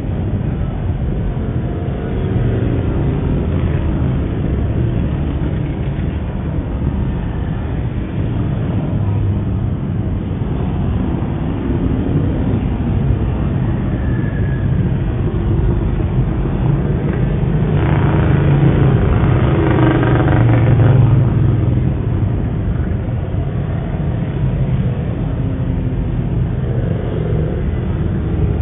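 A stream of motorcycles riding slowly past in procession, their engines making a steady low rumble that swells for a few seconds about eighteen seconds in. Heard through a security camera's microphone.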